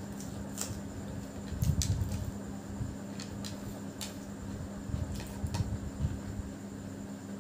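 Eating biryani by hand: fingers working rice on a plate and chewing, heard as a few scattered soft clicks and smacks with some low thumps, over a steady background hum.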